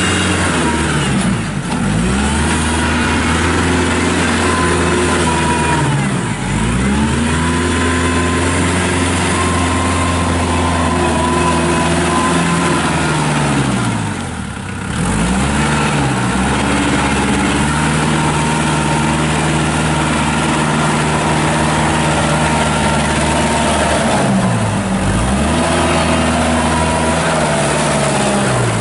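Kubota L4740 compact tractor's diesel engine running steadily as the tractor drives around the field, its sound dipping briefly a few times.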